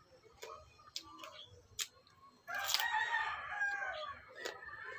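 A rooster crows for about a second and a half, starting about halfway through; it is the loudest sound. Behind it come short crisp crunches of a raw cucumber being chewed.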